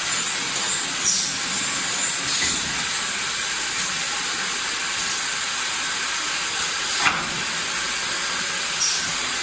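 Automatic six-nozzle bottle filling, capping and labeling line running: a steady hiss of machinery broken by short, sharp bursts every second or two, the loudest about seven seconds in.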